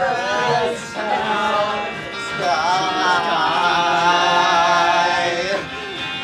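Group of young men singing a song together, loud and rough, holding one long note from about two and a half seconds in until it breaks off about five and a half seconds in.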